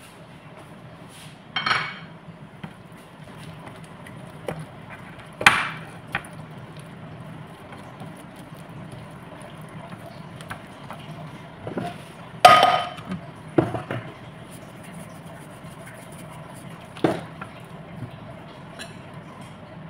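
A few sharp clinks and knocks of dishes and utensils on a kitchen counter, spaced several seconds apart, the loudest a little past halfway, over a low steady hum.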